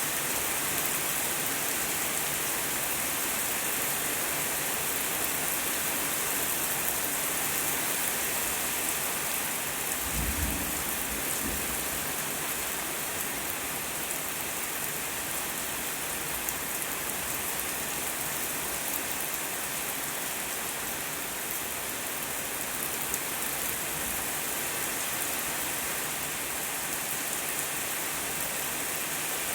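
Rain falling steadily, with one short low rumble of thunder about ten seconds in.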